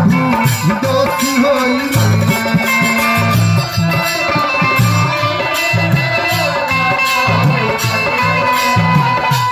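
Live folk stage music with no singing: a drum beats a quick, even rhythm under held melodic notes, with light regular ticks of a metal percussion instrument.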